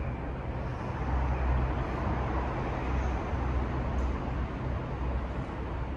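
Steady low rumble and hiss of a railway station's background noise, growing a little louder about a second in.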